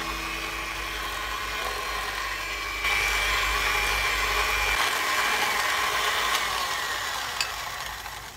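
National electric hand mixer running, its beaters whirring through butter and sugar in a stainless steel bowl while creaming. The motor gets louder about three seconds in, then its pitch drops and it winds down near the end.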